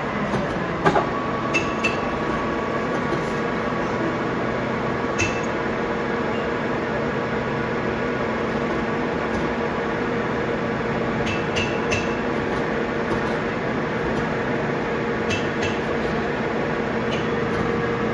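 Lathe running steadily while threading a steel worm shaft, a continuous machine hum with a few sharp metallic clinks scattered through it.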